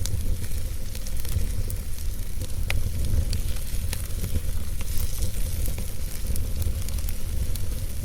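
Campfire burning: irregular sharp crackles and pops from the burning wood over a steady hiss and a low rumble.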